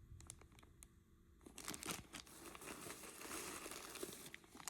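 Plastic bag crinkling as jewelry is handled and pulled out of it, with scattered light clicks. It is quiet for the first second and a half, then rustles steadily.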